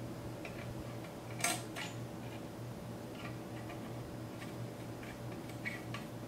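Small metallic clicks and ticks as long steel mounting screws are handled and turned in by hand on a radiator's metal frame. The loudest clink comes about a second and a half in, with lighter ticks later, over a steady low hum.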